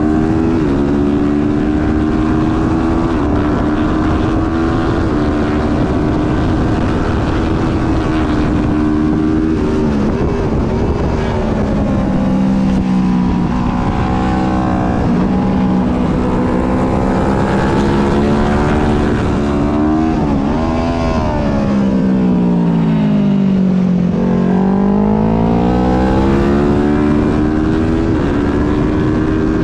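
Onboard sound of a twin-cylinder race motorcycle engine at racing speed, with wind rush. The revs stay high for most of the stretch, then about two-thirds of the way in they fall away to a low point and climb back up through the gears.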